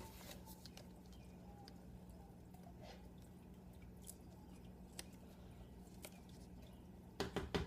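Faint clicks and taps of hands handling a laptop's replacement LCD panel and its connector, with a cluster of louder knocks near the end, over a low steady hum.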